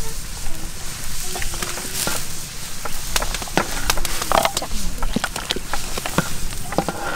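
Cooking noises: a run of light, irregular clicks and clinks of utensils, probably a ladle against the soup pot.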